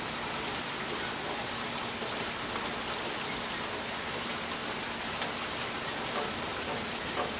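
Heavy rain pouring down steadily, with a few scattered light ticks.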